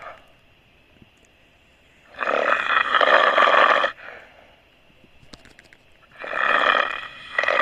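A person snoring loudly with harsh, fluttering snores: one starting about two seconds in and lasting under two seconds, a second about four seconds later, followed by a shorter snort near the end.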